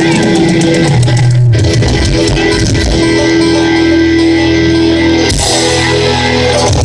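Live country-rock band playing loudly, with electric guitar holding long notes over bass and a steady drum beat.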